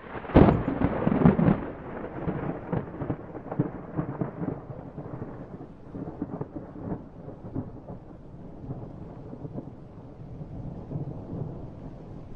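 Thunderclap: a sudden loud crack about half a second in, then a long rolling, crackling rumble that slowly fades, with rain beginning to fall.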